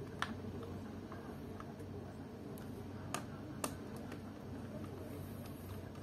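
Three sharp little clicks of a screwdriver against screws and the metal-and-plastic chassis of an opened laptop: one just after the start, then two about half a second apart a little after three seconds. A steady low hum runs underneath.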